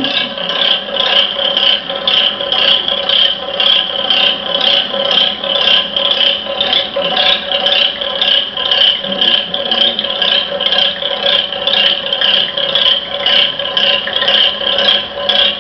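Laboratory magnetic stirrer running under a glass of liquid, a steady whir with a regular pulse about three times a second.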